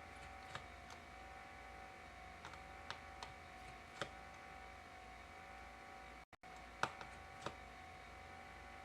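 Faint, sparse small clicks and taps from a precision pentalobe screwdriver backing out tiny screws and handling them, over a faint steady hum. About six clicks, the sharpest a little before two-thirds of the way through.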